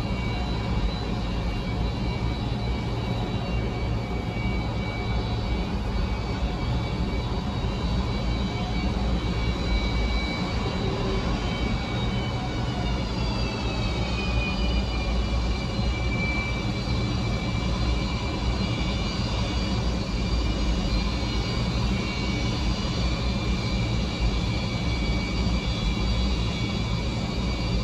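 Antonov An-124's four Progress D-18T turbofan engines running at taxi power: a steady low rumble under a high fan whine of several tones. The whine tones slide lower in pitch about halfway through as the aircraft turns.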